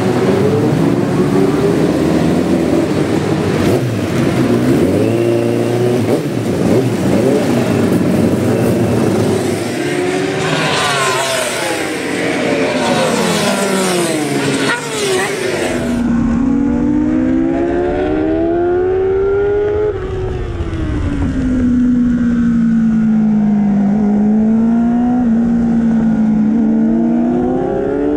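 Kawasaki superbike's inline-four racing engine run up on its stand, then race bikes passing at speed with falling pitch, then the engine heard from on board at full speed, its pitch rising through the gears and dropping off for braking.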